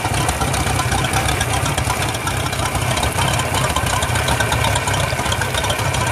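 A 4.3 L MerCruiser V6 inboard running steadily out of the water on a flushing hose, with water spraying off the spinning propeller of its Alpha One outdrive.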